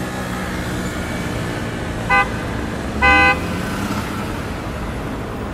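Car horn honking twice, a short toot and then a slightly longer one about a second later, over a steady rumble of traffic.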